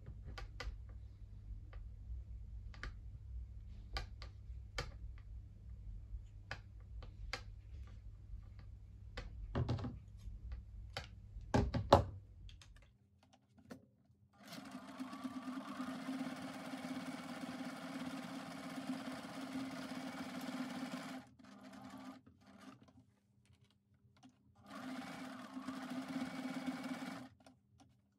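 Electric sewing machine stitching through layers of felt, running for several seconds, stopping, giving a short burst, then running again. Before it, for about the first half, there are faint scattered ticks and two louder knocks while felt is hand-stitched with needle and thread.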